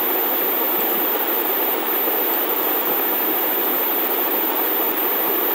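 Steady, even background hiss with a faint high-pitched whine over it, unchanging throughout.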